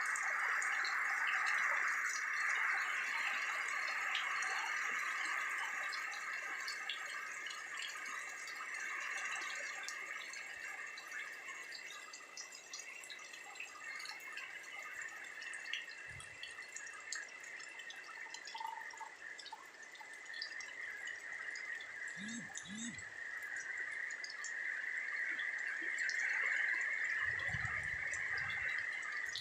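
Rain falling, with many small drips and patters over a steady high-pitched chorus that runs throughout, and a few low thumps in the second half.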